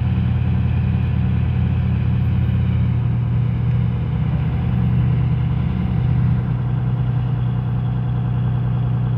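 Tugboat diesel engine running steadily with a deep, even hum. It is heavier and deeper for the first three seconds or so, then eases to a steady run.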